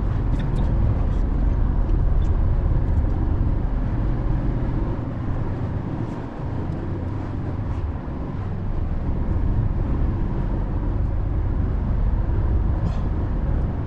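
Steady road and engine rumble of a moving car, a low drone that eases a little about halfway through and then comes back up.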